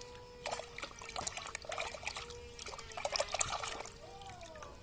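Water splashing and trickling in irregular bursts as small plastic toys are washed by hand.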